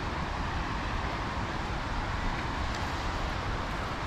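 Steady rushing of water spilling over a stepped concrete weir, with a low rumble beneath.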